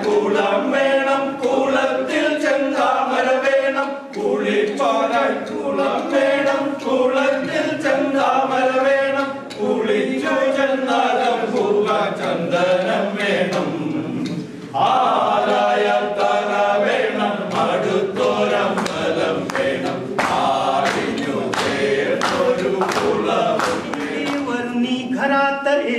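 Group of men singing a Marathi song together without accompaniment, with a short break about 14 seconds in.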